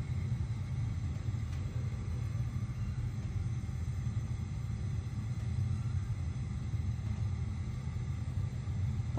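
A steady low rumble with no clear source, with nothing else prominent over it.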